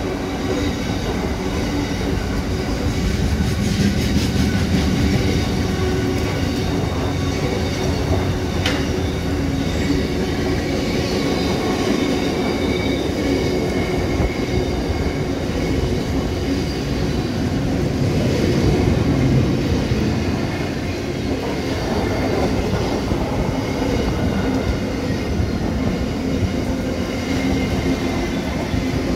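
Container freight train rolling past: a steady rumble of wagons running on the rails, with thin, steady squealing tones over it and a single sharp click about nine seconds in.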